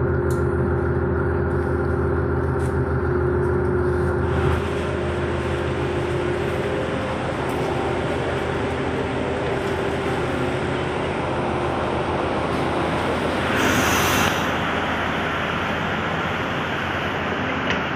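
Diesel multiple unit's engine running with a steady drone as the train rolls along. From about four seconds in, a rougher, more even noise of the train takes over, with a loud hiss lasting about a second about three-quarters of the way through.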